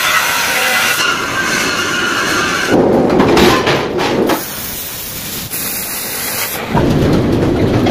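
Angle grinder cutting steel plate: a harsh, steady grinding noise. About three seconds in it breaks off into a run of other metal-workshop noises: rumbling machinery, and a steady hiss that fits a gas cutting torch slicing steel.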